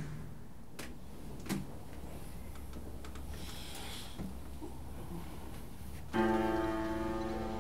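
Quiet room with a couple of faint clicks, then about six seconds in a mobile phone's melodic chime tone starts suddenly and rings on, bright and piano-like, waking the sleeper.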